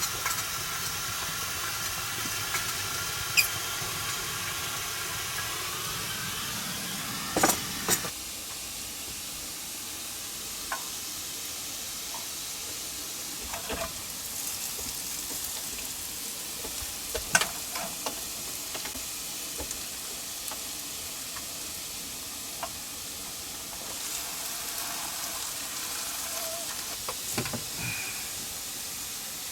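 Steaks sizzling as they fry on a wood stove: a steady hiss, a little louder for the first eight seconds, with a few sharp knocks and clicks scattered through it.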